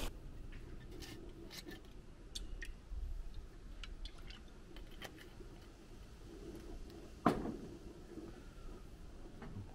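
Faint handling sounds of a glass olive-oil bottle being used over a flat-top griddle: scattered light clicks and taps, with one louder knock about seven seconds in.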